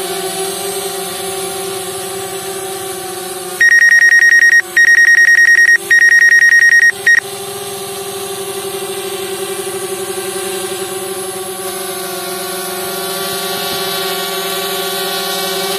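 Steady whine of a DJI Spark drone's propellers in flight. About three and a half seconds in, loud high-pitched electronic warning beeps sound in three long rapid pulses and a short fourth, a low-battery alarm.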